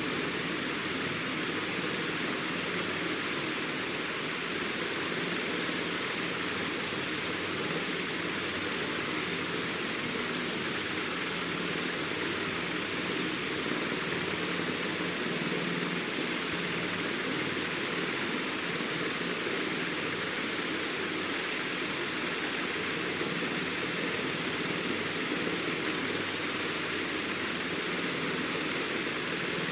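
Steady, even rushing hiss that does not change; a faint thin high whistle comes in for a couple of seconds near the end.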